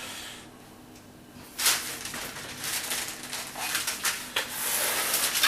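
A metal bench scraper and hands pushing and shaping sticky biscotti dough on baking parchment. Irregular scraping and rustling with a few sharp knocks, starting about a second and a half in.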